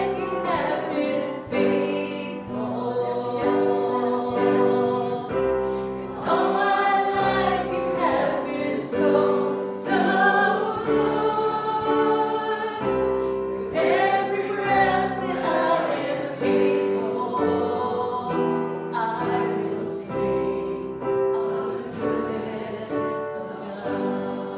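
A group of voices singing a gospel hymn together over held instrumental chords.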